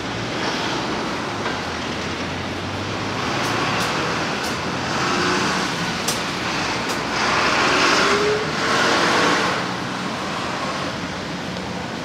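Road traffic: cars and vans passing on a seaside road. The tyre and engine noise swells twice, about four seconds in and again from about seven to nine and a half seconds, as vehicles go by.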